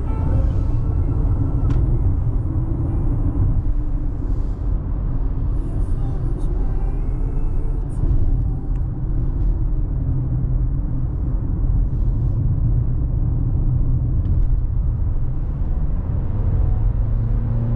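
Steady low road and tyre rumble inside a moving car's cabin at highway speed, with the engine running underneath.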